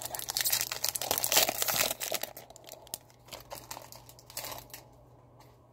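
Foil wrapper of a Pokémon card booster pack crinkling and tearing as it is opened by hand. It is loudest in the first two seconds, then thins to a few light rustles by about five seconds in.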